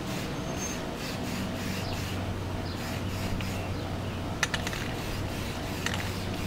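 Aerosol spray-paint can being shaken, its mixing ball rattling, with two short hisses of spray in the second half.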